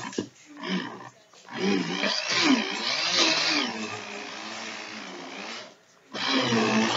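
Handheld electric stick blender running on its lowest setting, churning a thick deodorant mixture, its motor pitch wavering as it loads. It cuts out briefly near the end and starts again.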